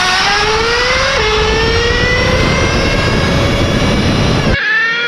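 Small nitro RC car engine running at full throttle, its high whine climbing steadily in pitch with a brief dip about a second in. Near the end it cuts off abruptly to a different steady high-pitched engine note.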